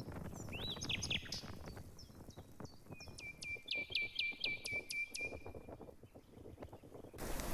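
Wild bird singing faintly: a few short calls, then a quick run of about eight sharp repeated notes. A low rustling runs underneath, and a louder rush of noise begins just before the end.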